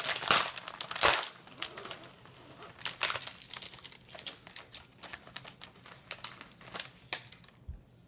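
Plastic cookie package crinkling and crackling as it is opened and pulled apart by hand, in rapid irregular crackles that are loudest in the first second or so and die away about seven seconds in.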